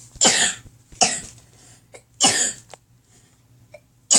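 A person coughing in a fit: three harsh coughs about a second apart, with a fourth starting at the very end.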